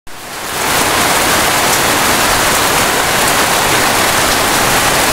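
Heavy tropical downpour in a steady hiss, with water gushing from a roof drain spout.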